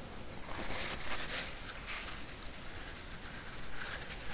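Soft, uneven scrubbing of a cloth wiping the freshly lapped valve seat inside the port of a VW air-cooled cylinder head, swelling about a second in and again near the end.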